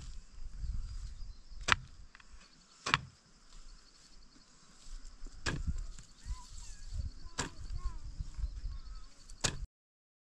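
Six sharp knocks or strikes, one every one to two seconds and irregularly spaced, over a low rumble and a steady high hiss. The sound cuts off abruptly just before the end.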